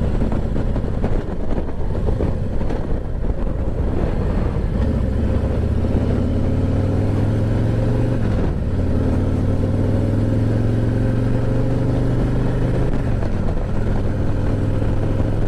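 Harley-Davidson Ultra Limited's V-twin engine running on the road, mixed with wind rush. The engine note climbs slowly for a few seconds, breaks briefly about eight and a half seconds in, then holds steady.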